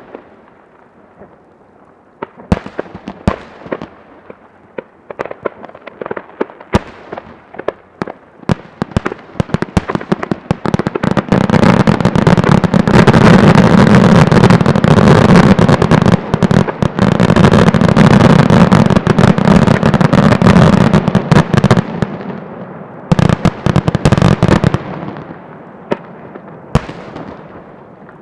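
Fireworks display, a wide starmine barrage: separate sharp bangs with echoing tails build into a dense, continuous run of booms and crackling that lasts about ten seconds, then thin back out to scattered reports.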